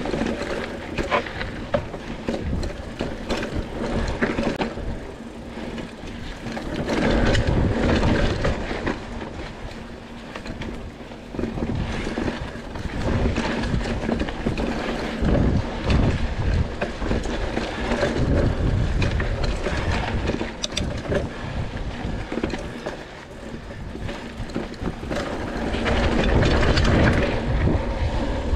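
Mountain bike ridden fast over a dirt singletrack: tyres rolling over dirt and roots and the bike rattling and knocking over bumps, with wind noise on the microphone swelling and easing with speed.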